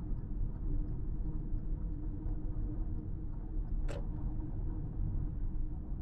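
Steady low road and engine noise from inside a car cruising on a highway, with a steady hum. Faint regular ticking runs through it at about three ticks a second, and a single sharp click comes about four seconds in.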